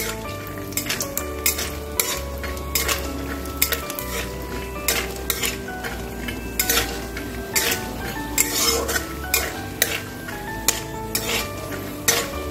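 Metal spatula scraping and clicking against an aluminium kadai as peanuts are stirred in hot oil, with a light sizzle of the frying nuts underneath. The clicks come irregularly, several a second at times.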